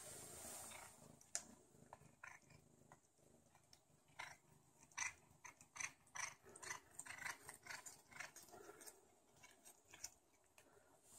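Domestic tabby cat biting and chewing a slice of lunch meat held in a hand: quiet, irregular wet clicks and smacks, thickest in the second half.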